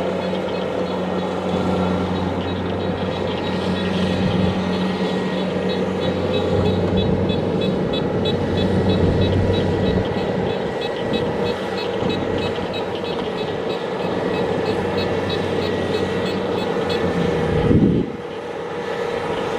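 Kubota DC-70 Plus combine harvester running under load while harvesting, its diesel engine droning steadily over the fast rhythmic clatter of the machinery. Near the end there is a brief louder swell, then the sound drops and changes.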